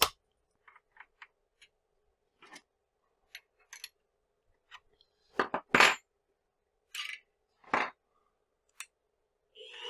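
Light metal clicks and clinks from changing tools by hand on a CNC mini mill as the center drill is fitted, with a few louder metallic knocks about five and a half and eight seconds in. A machine motor starts running right at the end.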